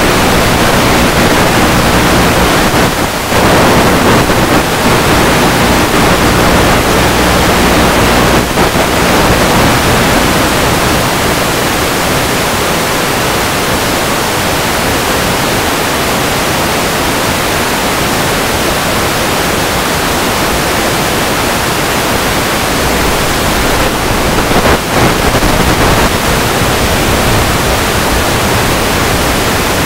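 Steady loud hiss of noise on the onboard audio of a Multiplex EasyStar 2 RC plane in flight, with a low steady hum under it for about the first eight seconds that then fades out.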